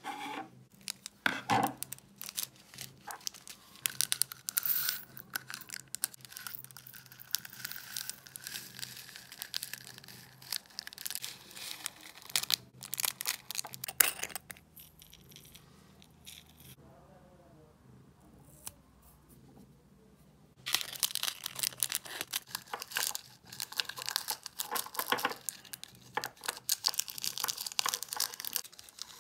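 Small plastic bags of diamond-painting resin drills crinkling as they are cut open and handled, and drills rattling as they are poured into small glass jars, in dense crackly bursts. A sharp click about 14 seconds in is the loudest sound; the handling falls quiet for several seconds past the middle, then starts again.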